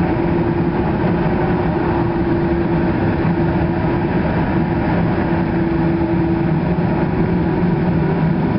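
Airbus A300B4-605R's twin turbofan engines running steadily at low power while the airliner taxis, heard inside the cabin as a constant hum over a steady rush of noise.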